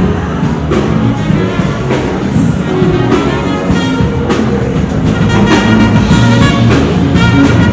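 Music with brass instruments, such as trumpet, over a drum beat, in a jazzy style.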